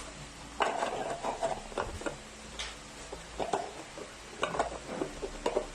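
Small knocks, clicks and rattles of a newly unboxed soap dispenser being handled and set down, coming in short clusters with pauses between them.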